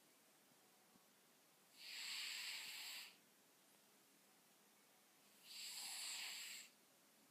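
Cat snoring: two airy, breathy snores about four seconds apart, each a little over a second long.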